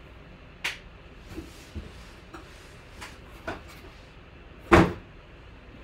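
A scattered series of light knocks and clicks, about half a dozen, then one much louder knock about three-quarters of the way through.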